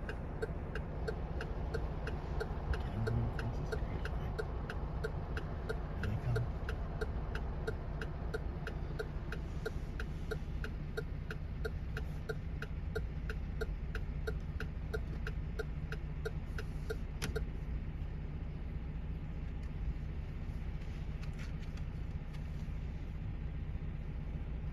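Car engine idling with a steady low hum, while the dashboard indicator clicks steadily about twice a second; the clicking stops with one sharper click about two-thirds of the way in, and the idle hum carries on.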